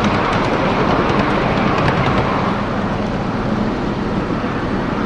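Ride-on miniature train cars rolling along the track: a steady rumble and rattle of wheels on rails, with a few light clicks over the first two seconds.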